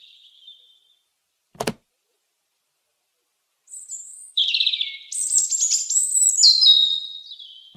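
A robin singing a high, rapid twittering phrase of about four seconds, starting a little past halfway through. Before it there is a single sharp click and otherwise near silence.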